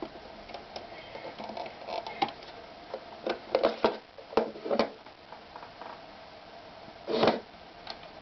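Irregular clicks and knocks of a Mini Jaguar 281 mini sewing machine being handled, over a faint steady hum, with one short louder burst about seven seconds in.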